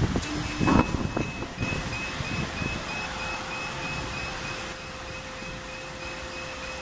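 Hydraulic cold press for plywood running in a factory: a steady machine hum that sets in about three seconds in, over a steady noise, with a faint high chirp repeating two to three times a second. Low rumbly bumps of wind or handling noise on the microphone in the first second and a half.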